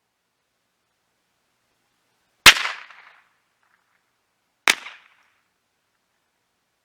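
Two shots from a Weatherby Mark XXII .22 LR semi-automatic rifle, about two seconds apart, the first louder, each trailing off in a short echo.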